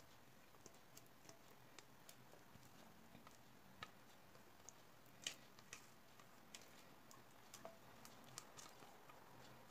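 Near silence with faint, scattered clicks, the loudest a little past halfway: a silicone spatula and saucepan knocking lightly as thick coffee-jelly mixture is scraped out into a glass baking dish.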